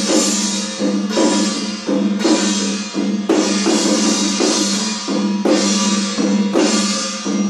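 Chinese temple ritual percussion for a spirit-medium trance: drums beaten in a steady rhythm over a sustained low ringing tone, with a loud accented stroke about once a second.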